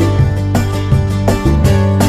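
Background instrumental music: plucked notes in a steady rhythm over held bass notes.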